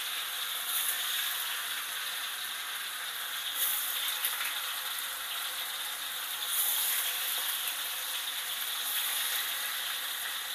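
Tofu pieces sizzling and crackling in hot oil in a wok, with the sizzle flaring up several times as more pieces are dropped into the oil.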